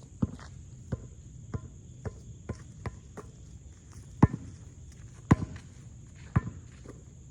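A basketball being dribbled on a hard court: a thud about every half second, then three harder bounces about a second apart. Crickets keep up a steady high chirring underneath.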